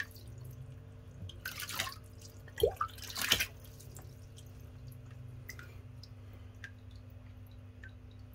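Small amounts of water splashing and dripping in a nearly drained aquarium container: two short splashes in the first few seconds, then scattered faint drips.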